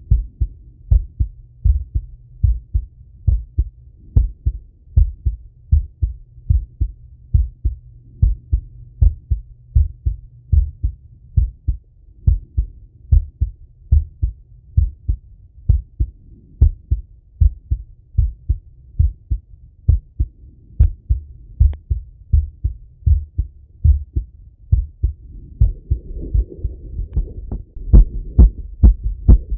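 A man's heartbeat heard through a Littmann stethoscope on his chest, in the recovery after a set of exercise: a steady, even run of low lub-dub thumps. Near the end the beats grow louder and a soft rushing noise comes in under them.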